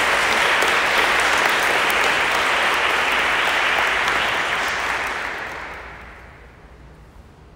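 Applause from a seated group of students clapping their hands, which dies away about five to six seconds in.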